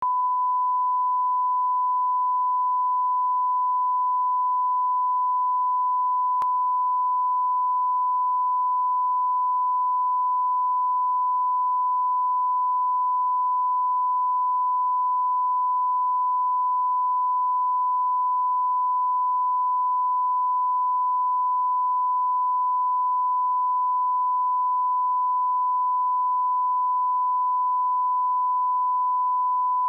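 Steady 1 kHz line-up test tone: a single pure, unbroken tone played with colour bars at the head of a broadcast tape, the reference tone for setting audio levels.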